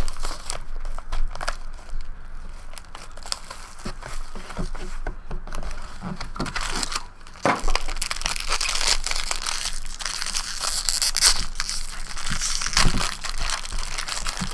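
Foil wrapper of a trading-card pack being torn open and crinkled by hand, with many small clicks and rustles. The crinkling grows denser and brighter about halfway through.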